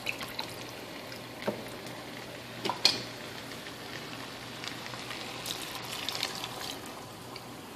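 Faint steady sizzling and bubbling from a pot of basmati rice, sausage and chicken on the stove as a cup of chicken broth goes in, with a few light clicks around a couple of seconds in.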